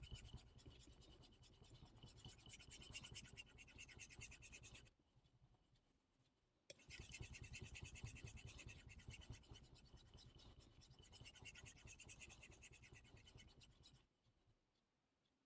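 Steel gyuto knife blade being stroked back and forth on a Suehiro Debado whetstone: quick rhythmic scraping, pausing about five seconds in, resuming about two seconds later, and stopping near the end.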